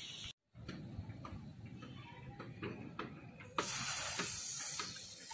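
Aerosol chain cleaner sprayed through a straw onto a dry motorcycle drive chain: a steady hiss that starts a little past halfway, after a few faint clicks.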